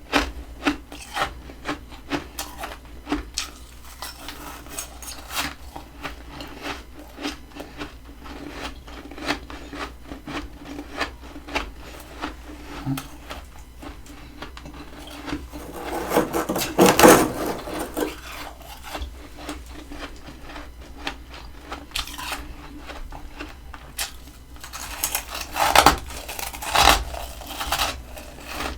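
Close-up crunching and rasping of compacted freezer frost, a steady run of sharp crackles with a longer, louder grinding crunch about two thirds of the way in and two more strong crunches near the end.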